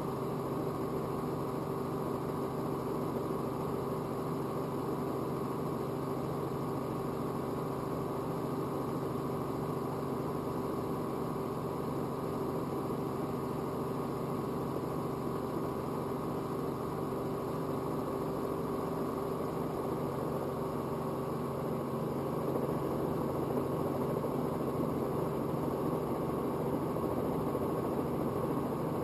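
Robinson R44 helicopter running steadily on the ground, its engine and rotor making a constant hum with steady tones; it grows slightly louder about three quarters of the way in.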